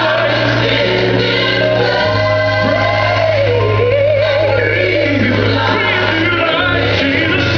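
Gospel choir singing over held bass notes. The bass changes note about two seconds in and again near the end.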